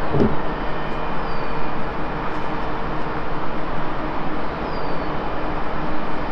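Steady outdoor background noise: an even hiss with a faint steady hum running under it.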